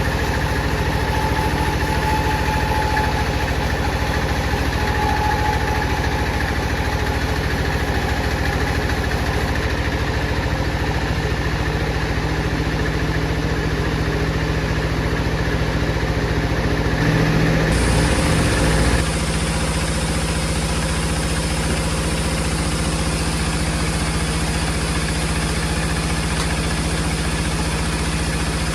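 Motor-driven wood saw running steadily, with a short louder stretch of about two seconds roughly two-thirds of the way through.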